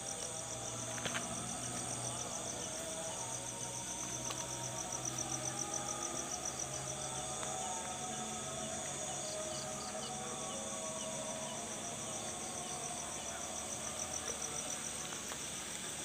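Insects chirring by a river: a fast, even, high-pitched pulsing trill with a steady thin whine above it and short repeated chirps lower down.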